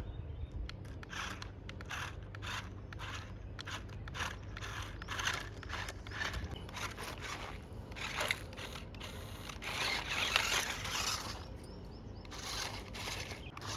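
Radio-controlled construction model working in gravel or dirt: repeated short scrapes and crunches, with a longer, louder scrape about ten seconds in, over a steady motor hum.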